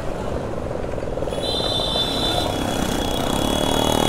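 Motorcycle running on the road with traffic noise around it. A steady high-pitched tone comes in about a second and a half in and holds.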